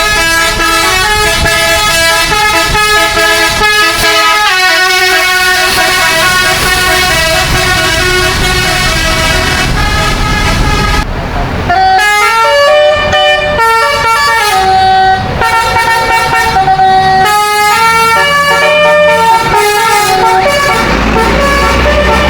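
Bus 'telolet' musical air horns playing a tune in stepped notes, several horn tones sounding together on each note. It breaks off briefly about eleven seconds in, then a second tune with longer held notes follows.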